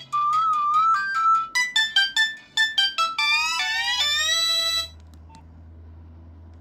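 Nokia 1661 ringtone: a quick electronic melody played through the phone's loudspeaker. It ends in a short run of rising notes and stops about five seconds in.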